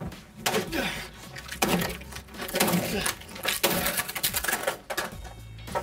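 Acoustic guitar being smashed, with several hard wooden cracks and crashes over a few seconds as the body breaks apart.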